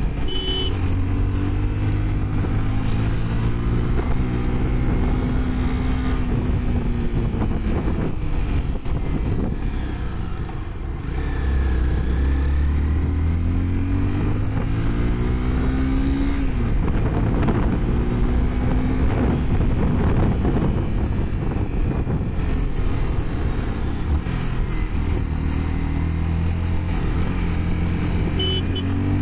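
Honda CBR 250R's single-cylinder engine heard from the rider's seat on the move, its revs rising and falling several times as the throttle opens and closes through the bends, over a steady rush of wind.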